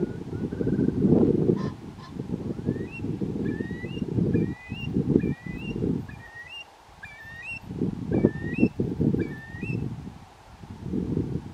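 Eurasian curlew calling: a series of about a dozen short rising whistled notes, roughly two a second, starting about three seconds in and ending near the ten-second mark. Gusts of wind rumble on the microphone throughout.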